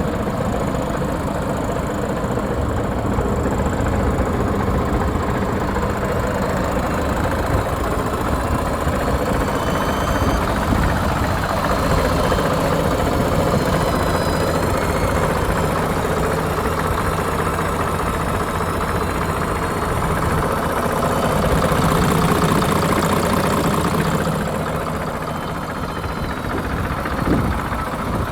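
Iveco Trakker 380 concrete mixer truck's diesel engine idling steadily, getting a little louder for a few seconds about two-thirds of the way through, with a short knock near the end.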